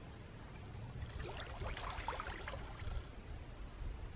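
Faint splashing of water as a swimmer ducks his head under the surface of a cold lake, in a scatter of small splashes between about one and three seconds in, over a low steady rumble.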